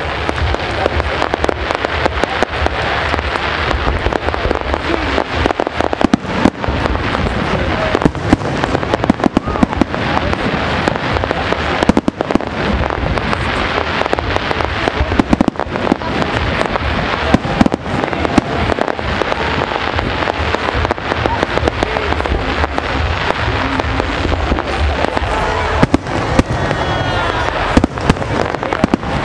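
Aerial fireworks shells bursting in quick succession: many sharp bangs over a continuous rumble.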